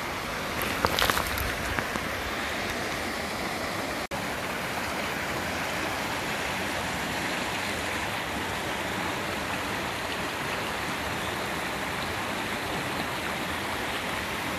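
Stream water rushing steadily over rocks, with a few footsteps on stones about a second in.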